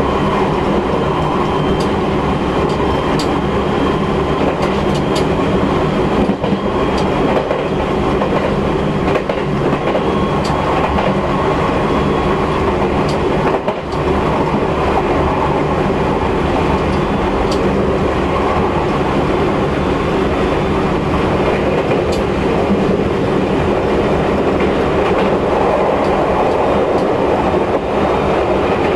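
JR West 223 series 2000 subseries electric train running at a fairly steady speed, heard from aboard. The hum of its traction motors and Mitsubishi IGBT VVVF inverter gives a steady whine over the wheel and track noise, with scattered sharp clicks from the rails.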